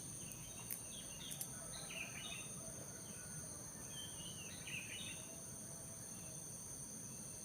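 Forest ambience: insects keep up a steady, high-pitched drone while birds give short chirping calls every second or so. A couple of light clicks sound in the first second and a half.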